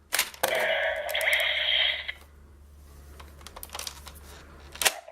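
Plastic clicks from a DX Gaburevolver roleplay toy being worked, then a sound effect from its small speaker lasting under two seconds, followed by quieter handling clicks and one more sharp click near the end.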